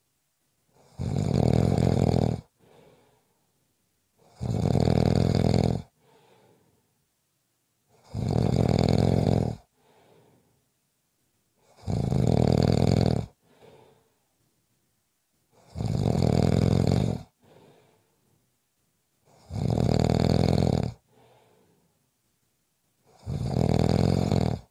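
A sleeper snoring in a steady rhythm: seven loud snores, one about every three and a half to four seconds, each followed by a faint breath out.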